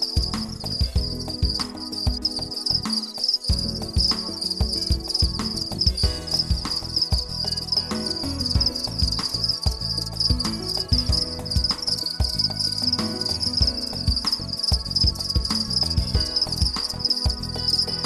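House crickets chirping steadily in a high, continuous trill, over low background music.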